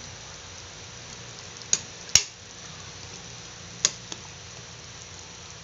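Metal ladle knocking against the side of an aluminium pan of simmering fish soup while stirring: four sharp clinks, the loudest a little over two seconds in, over a steady faint background.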